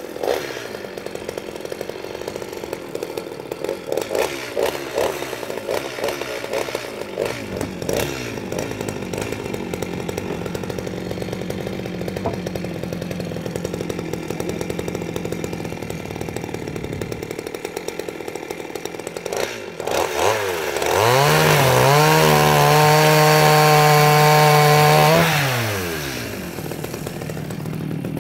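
Petrol chainsaw idling, unevenly at first, then revved up about twenty seconds in and held at full throttle for about four seconds while cutting through a log, before dropping back to idle.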